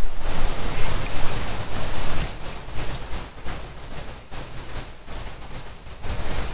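Wind gusting on the microphone, a rushing noise with a low rumble, over the steady rush of outdoor air and running water. It eases off after about two seconds and picks up again near the end.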